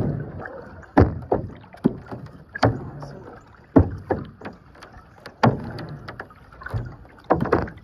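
Kayak paddles banging against the hull of a see-through kayak as it is paddled: sharp, irregular knocks about once a second, with water noise between them.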